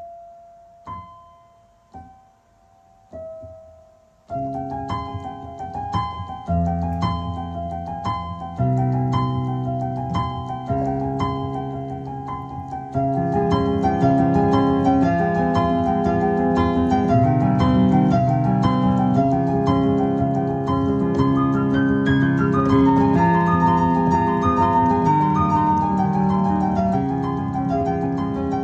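Instrumental piano music: a few single notes about a second apart, then fuller playing with low notes from about four seconds in, growing louder and fuller about halfway through.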